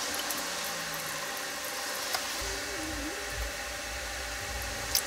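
Steady hiss with a few light plastic knocks as a coolant jug and funnel are handled at a radiator filler neck: one at the start, one about two seconds in and one near the end.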